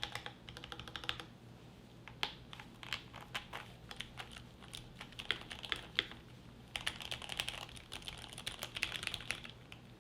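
Typing on an Akko Mod 3 full-size aluminum gasket-mount custom mechanical keyboard with lubed Gateron Ink Black V2 linear switches and GMK keycaps. Runs of quick keystrokes with short breaks, one between about one and two seconds in and another around six seconds in.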